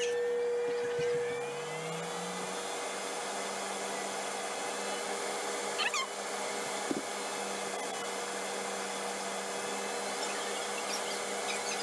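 Ninja Foodi XL grill running on Air Crisp at 450°F, its fan giving a steady whir that rises a little in pitch about a second or two in. A faint short chirp and a small click come near the middle.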